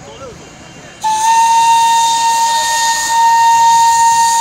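Darjeeling Himalayan Railway steam locomotive blowing its whistle: one long, loud, steady blast with a hiss of steam. It starts sharply about a second in and holds to the end.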